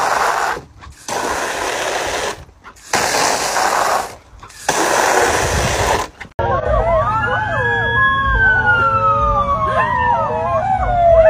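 Garden hose spray nozzle hissing in four bursts as it sprays water into a plastic kiddie pool. After a sudden cut, dogs howl in several overlapping, wavering howls that rise and fall in pitch, with one long falling howl.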